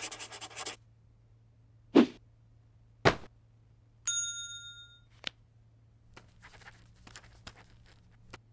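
Intro sound effects: a quick pencil-scribbling sound, two short hits, then a bright bell-like ding that rings out for about a second, a click, and a soft scratchy rustle near the end.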